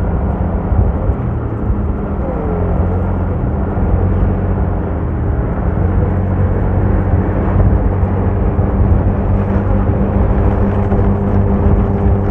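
Steady drone of a moving road vehicle: engine hum with road noise, holding an even pitch throughout.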